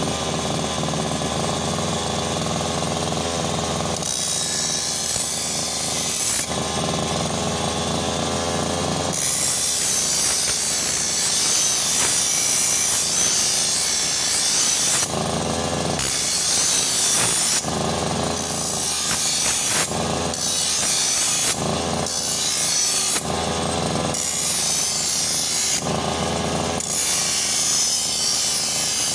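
Brush cutter engine running, its sound changing every few seconds between a steady drone and a harsher, hissing sound.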